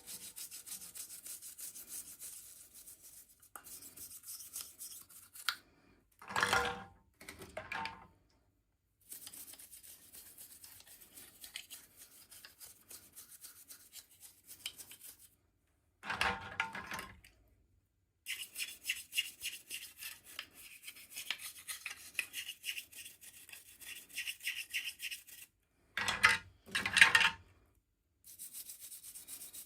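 Close-up rubbing and scratching of packaging being handled and opened, in rapid fine strokes. It comes in short edited stretches with dead-silent cuts between them, and louder fuller handling noises about a quarter of the way in, just past halfway, and near the end.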